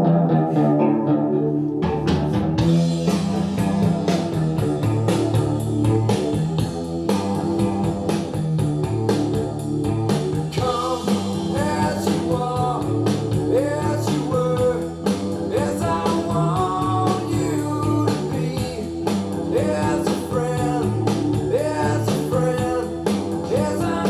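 A guitar song with singing played through a pair of two-way bookshelf speakers with VIFA drivers, driven by an EL34 single-ended valve amplifier of about 8 watts, turned up and heard through a microphone in the room.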